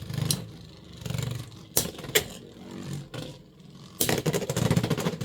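Beyblade X spinning tops whirring in a plastic stadium, with sharp clacks as they strike each other, then a burst of rattling clatter about four seconds in.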